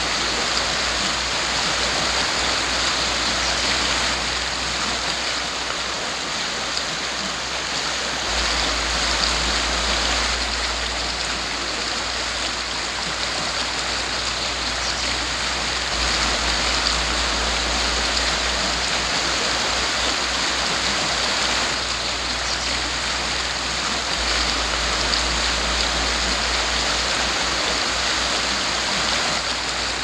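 Fast-flowing creek rushing over rocks and through riffles: a steady, unbroken rush of water.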